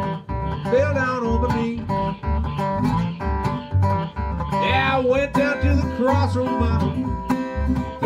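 Live acoustic Delta blues: an acoustic guitar playing steadily, a washtub bass plucking low notes about twice a second, and a lead melody line whose notes bend in pitch on top.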